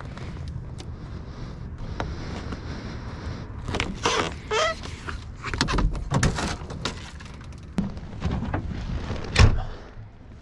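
Toyota Tacoma camper shell and tailgate being unlatched and opened by hand: clicks and knocks of latches and handles, with a brief squeak about four seconds in, and a heavy thump just after nine seconds as the bed is entered.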